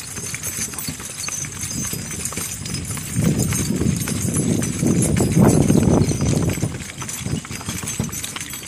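Hooves of a team of two mules clip-clopping on a paved road as they pull a wagon. A louder low rumble swells from about three seconds in and fades out before seven seconds.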